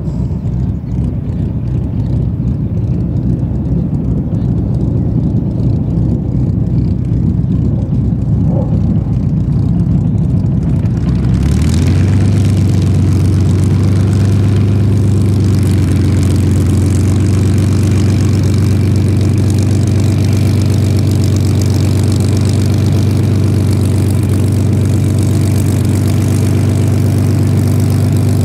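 Spitfire's Rolls-Royce Merlin V12 aero engine running, a loud, low, pulsing drone. About eleven seconds in it changes to a louder, steadier and brighter run.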